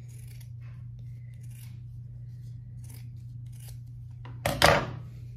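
Fabric scissors cutting through folded felt, a string of quiet snips, with one louder short burst about four and a half seconds in.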